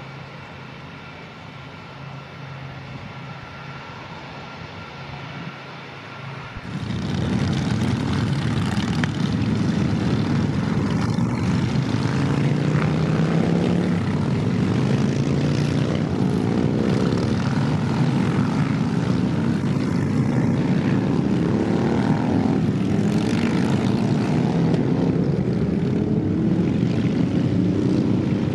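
Four Rolls-Royce RB211 turbofans of a Boeing 747-400F at take-off power, a growling jet roar. For the first quarter it is a quieter steady engine sound with held tones, then it jumps abruptly much louder, with sweeping rising and falling tones through the roar.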